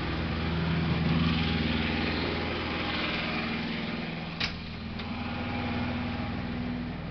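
Steady machine hum with a low drone, as from a motor running, and two light clicks about four and a half and five seconds in.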